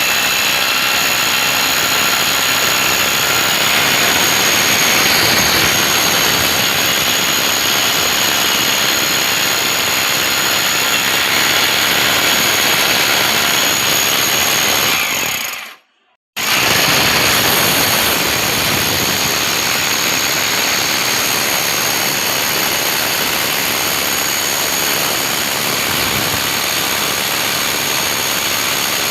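A motor-driven machine running steadily, a loud hissing whine with a faint high tone over it. It drops out for about half a second just past the middle, then comes straight back.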